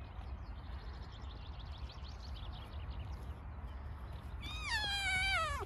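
A single high-pitched canine whine, a little over a second long, near the end, dropping sharply in pitch as it ends.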